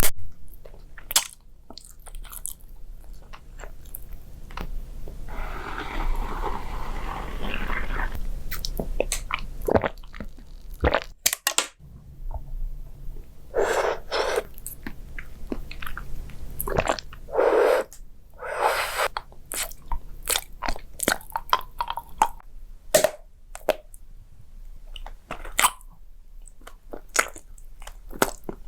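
A person biting and chewing crunchy food, with many sharp crackling clicks and a few longer crunching stretches.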